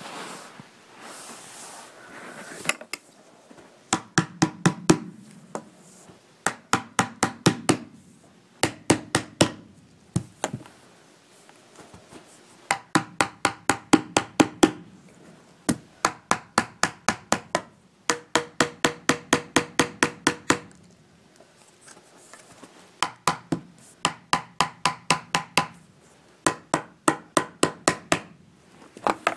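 Hammer blows in quick runs of several strikes each, about four or five a second, with short pauses between runs; each strike rings briefly.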